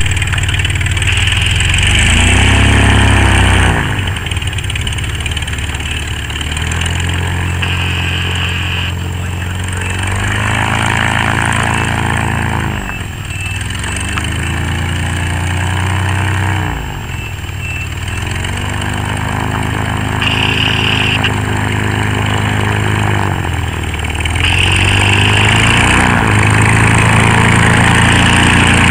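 The 100 hp six-cylinder GM Corvair engine and pusher propeller of a Dominator gyroplane, running steadily as it taxis back and forth. The pitch swells and dips several times as the machine passes, and it is loudest when closest. The engine runs smoothly, "like a sewing machine" in the owner's words.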